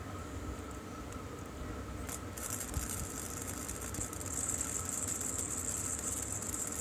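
Steady machine hum with a thin high hiss that grows louder about two and a half seconds in and again past the middle.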